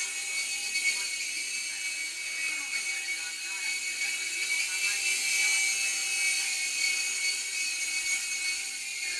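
Helicopter engine running with a steady high-pitched whine of several unchanging tones.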